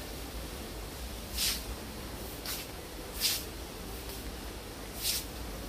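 Steady noise of heavy rain drumming on a supermarket roof, with about five short hissing bursts spread through it.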